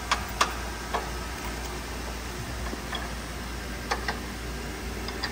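Light metallic clicks and taps of a steel receiver plate, stainless bolts and lock washers handled and fitted by hand against a car's crash bar. There are a few clicks in the first second and a quick pair about four seconds in, over a steady low hum.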